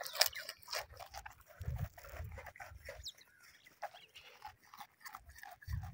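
Goats eating fresh berseem clover fodder: faint, irregular crunching and rustling as they bite and tear the stalks.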